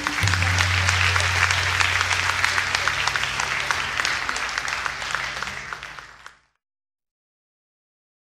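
Audience applauding, a dense patter of claps over a low steady drone, fading out about six seconds in and then cutting to silence.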